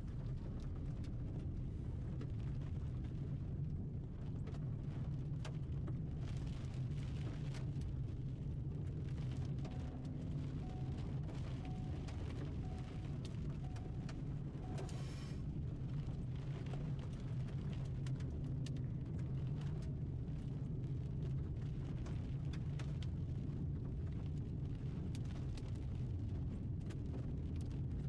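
Steady rumble of a car driving on a wet gravel road, heard inside the cabin, with scattered sharp ticks of rain and grit hitting the body and glass. A windshield wiper sweeps the glass once about halfway through.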